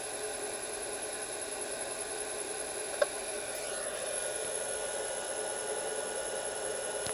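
Electric lathe motor running on a variable frequency drive (VFD) turned up to about 49 Hz, together with the drive's cooling fan: a steady hum and hiss with a constant high whine. A single sharp click about three seconds in.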